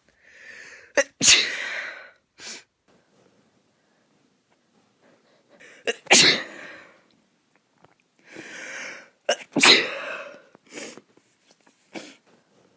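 A woman sneezing three times, evenly spaced, each loud sneeze preceded by a breathy inhaling build-up, with a few short breaths between. The sneezes come from a lingering nose itch after a cold.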